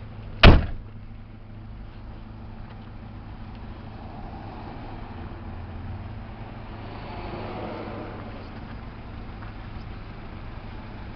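The rear liftgate of a Mazda Bongo van slams shut with one sharp bang about half a second in, over a steady low hum.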